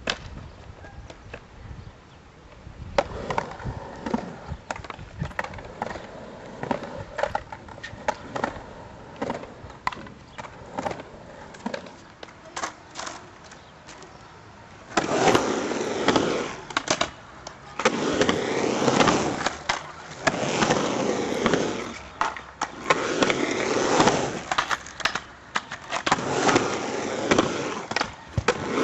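Skateboard on a concrete mini ramp: sharp clacks and knocks of the board and trucks, then from about halfway loud rolling of the wheels in stretches of about two seconds with short gaps between, each stretch dotted with knocks.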